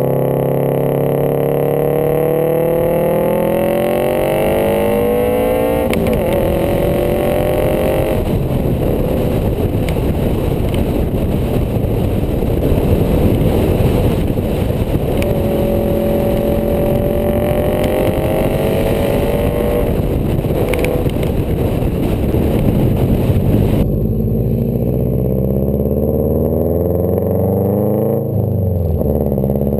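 2002 Subaru WRX's turbocharged flat-four exhaust, through an Invidia downpipe, SRS mid pipe and a custom axle-back with a resonator and catalytic converter, heard from the rear of the car with a light rasp and heavy wind noise over it. It pulls up with rising pitch, shifts about six seconds in and climbs again, then holds a steady cruise. About two-thirds of the way through the wind drops away and the engine runs slower and lower.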